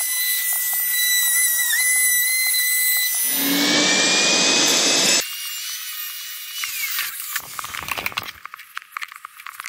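Handheld router fitted with a 1/4-inch rabbeting bit, running with a steady high whine and then cutting a rabbet around the inside of a wooden door frame. The sound changes abruptly several times, as short clips are joined, ending in a choppier stretch of cutting noise.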